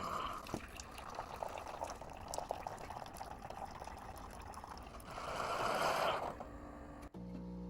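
Liquid trickling and pouring, with many small clicks. A louder rush of noise about five seconds in lasts a little over a second.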